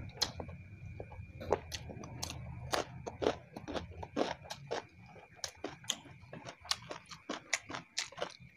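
Close-miked mouth sounds of a person chewing a mouthful of fried rice: wet lip smacks and tongue clicks, irregular, about two or three a second, over a faint steady background hum.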